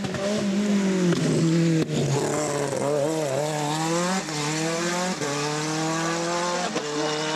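Renault 5 Turbo rally car's engine under hard acceleration: the pitch wavers and dips as it comes off a bend, then climbs and drops sharply three times, at upshifts about four, five and seven seconds in.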